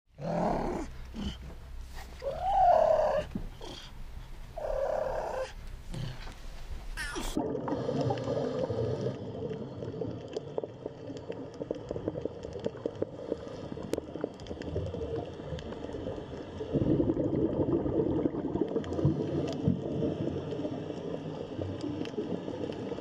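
Lion cub calling: three short calls that slide up and down in pitch. About seven seconds in, the calls give way to a steady low drone with faint crackles.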